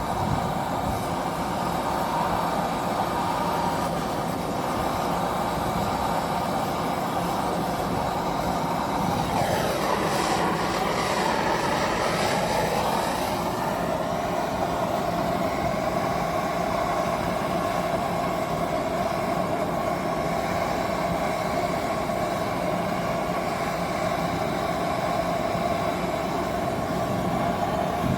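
Steady mechanical running noise, machinery or traffic, with a pitch that dips and rises again about ten seconds in.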